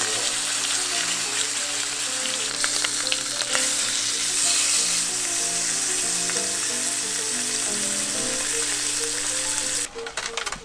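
A block of beef with garlic sizzling steadily as it sears in an oiled pot on an induction cooktop, cutting off suddenly near the end. Soft background music plays underneath.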